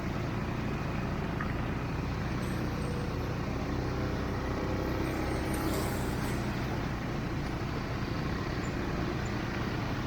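ATV engine running steadily while riding, with a constant low rumble and no changes in pace.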